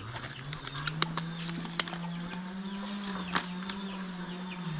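Plastic bag crinkling as plucked pigeon carcasses are tipped into a metal pan, with a few sharp clicks. A low steady hum of unclear source runs under it, and birds chirp in the background.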